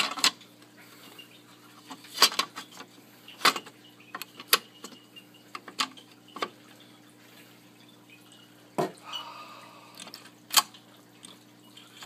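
Irregular sharp clicks and metallic taps as a screwdriver and small parts are handled in the metal chassis of a TRS-80 Model II's 8-inch floppy disk drive, while a screw that dropped inside the drive is fished out.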